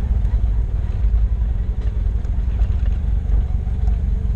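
Jeep Wrangler YJ engine running at low revs while driving down a dirt trail: a steady low rumble with fast, even exhaust pulses.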